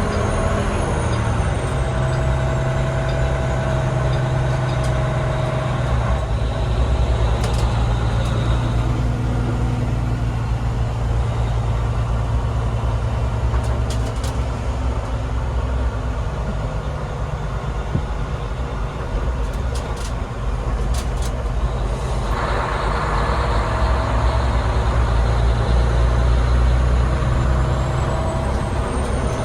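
Fire truck engine running as the truck drives, heard from inside the cab as a steady low drone. The engine note changes about six seconds in, and the sound grows louder and fuller from about twenty-two seconds in as the truck picks up.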